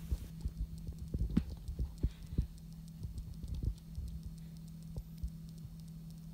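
A dog working a rubber wobble treat toy on a tile floor: irregular low thumps and knocks of the toy and paws on the tiles, thinning out after about four seconds, over a steady low hum.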